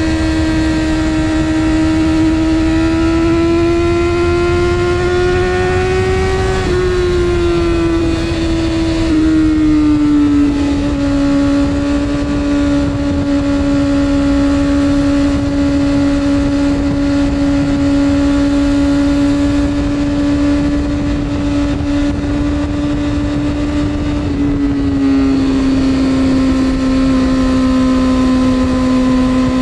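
Sport motorcycle engine, heard from onboard, running at high, steady revs. The pitch rises slightly at first, steps down a few times around 7 to 10 seconds in, holds steady, then drops once more near the end, with a steady rush of wind noise underneath.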